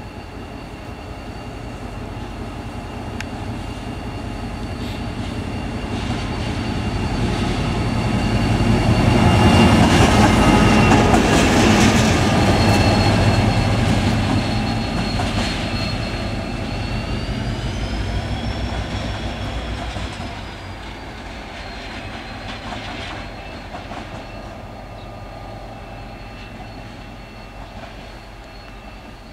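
GM 071 class diesel-electric locomotive, with its EMD two-stroke V12 engine, running light past at low speed: the engine and wheel rumble build to a peak about a third of the way in, then fade as it pulls away. A thin high wheel squeal runs through, swooping up and back down about two thirds of the way in.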